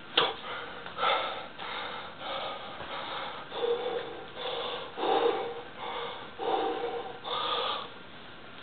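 A man's forced, straining breaths and gasps of effort while bending a steel horseshoe by hand, about one short burst a second, dying away near the end.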